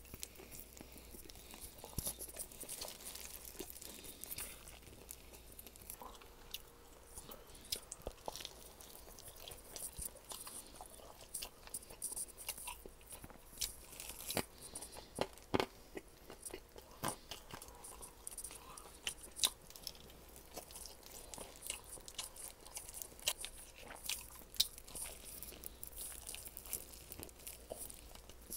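Biting and chewing crispy garlic-crusted chicken (Goobne Namhae Garlic Basasak): irregular sharp crunches of the crust in the mouth, with quieter chewing between.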